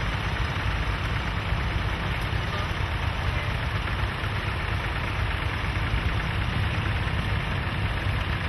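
Several vintage farm tractor engines idling and running together as tractors pull off and drive past; a steady, deep engine sound.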